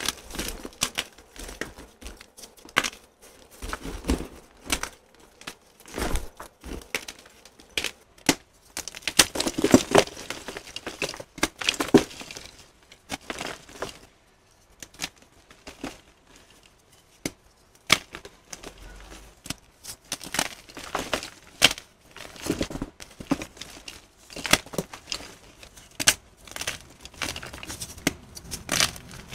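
Gym chalk blocks crushed and crumbled by hand: irregular dry crunches and crackles, with a quieter pause about halfway through.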